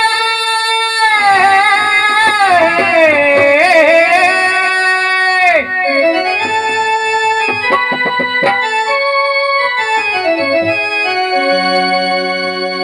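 Harmonium with dholak accompaniment in a Telugu devotional song: a sung note with wavering pitch is held for the first five seconds or so, then the harmonium plays a melodic interlude of steady stepped notes, with a few dholak strokes about eight seconds in.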